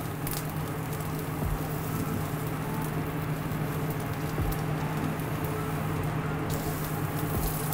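Beef fat from a tomahawk steak dripping onto hot charcoal, sizzling steadily with small crackles as the fat side sears on the barbecue grill, over a steady low hum.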